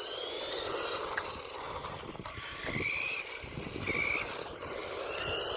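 Electric motor of a GPTOYS S911 RC truck whining in several short bursts as it accelerates, the pitch rising each time, over a steady rushing noise.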